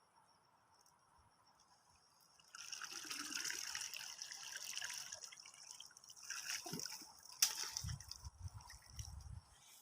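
Water splashing and trickling, starting suddenly about two and a half seconds in after faint cricket chirping, with a sharp click near the end. The sound fits water running and dripping during cast-net fishing.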